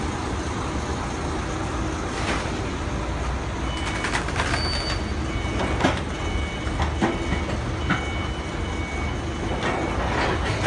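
Forklift engine running steadily under a continuous rumble, with scattered metallic knocks and clatter, as crated glass is loaded into a shipping container.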